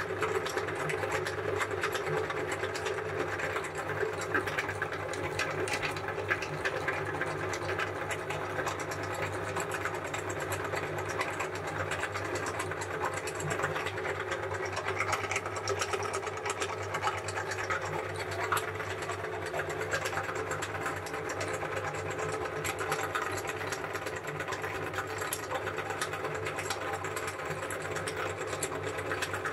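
Belt-driven cast-iron meat grinder running steadily under load as it grinds frozen chocobar ice cream through its cutting plate: a constant motor-and-drive hum with a fast, fine rattle running through it.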